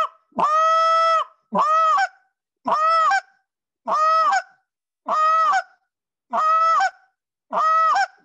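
Short reed goose call blown in a string of seven moans, about one a second. Each note starts with a low grunt and then holds a steady, whiny tone. The first is the longest; the later, shorter ones end in a sharp upward break in pitch, the moan rolling over into a cluck.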